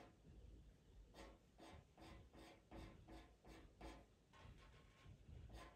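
Pastel pencil scratching on Pastelmat paper in short repeated strokes, about two or three a second, with a brief lull about four seconds in.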